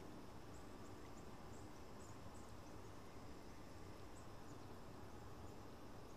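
Faint outdoor ambience: a low steady hiss with short, high, faint chirps, about one or two a second, and a faint steady high tone.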